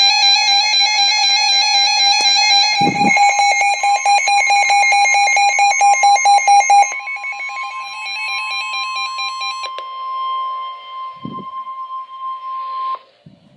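Weather alert radio sounding an emergency alert: a loud, rapidly pulsing alarm for about the first seven seconds, overlapped from about four seconds in by the steady NOAA Weather Radio 1050 Hz warning alarm tone. The steady tone stops just before the end. It signals that a warning, here a severe thunderstorm warning, is about to be read.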